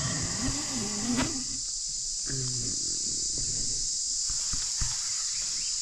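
Steady chorus of night insects, crickets, with a couple of short low calls over it in the first half and a single sharp click near the end.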